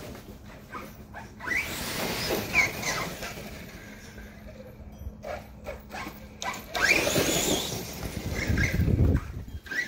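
Redcat Landslide XTE brushless electric RC truck driving across a lawn. Its motor whines up in short bursts of throttle over the noise of tyres and drivetrain, loudest as the truck comes close near the end.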